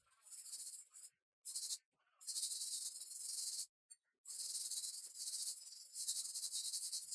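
Aerosol spray can hissing in bursts as a coat is sprayed onto a steel hand-saw blade: four sprays, the last and longest about three and a half seconds.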